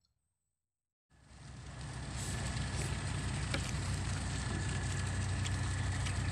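An engine running steadily with a low drone and a thin high whine on top, fading in about a second in after a moment of silence. A few light clinks, like utensils against a steel bowl, sound over it.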